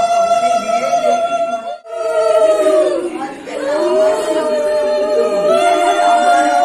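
Conch shells (shankha) blown in long held notes, with a break for breath about two seconds in. In the middle the pitch sags and rises again, and near the end two conches overlap.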